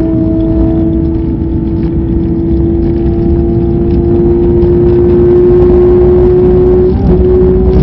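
Race car engine at full throttle, heard from inside the cabin over loud road and wind noise. The engine note climbs slowly as the car accelerates, with a short break near the end.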